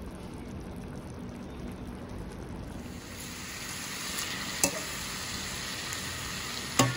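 Shanghai bok choy and oyster mushrooms sizzling in a frying pan as they are stir-fried with a spatula. The sizzle grows louder about three seconds in, and the spatula knocks sharply against the pan twice in the second half.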